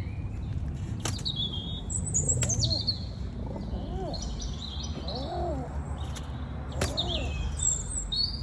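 Small songbirds chirping and twittering high up, with short, low, arched cooing notes several times in the middle. A few sharp clicks and a steady low rumble lie underneath.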